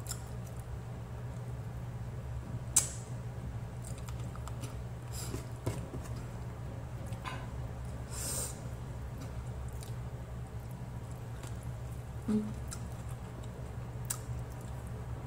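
Close-miked eating sounds: soft mouth clicks and smacks as a person chews grilled milkfish and rice eaten by hand, over a steady low hum. One sharper click about three seconds in.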